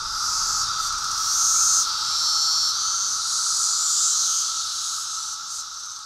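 Periodical cicadas calling in a steady chorus: a buzzing hum with a higher, shrill drone over it, slowly fading near the end.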